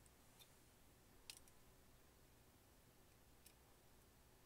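Near silence with a few faint, sharp clicks, the loudest about a second in, from a screwdriver and small screws being worked against a cassette deck's metal transport chassis.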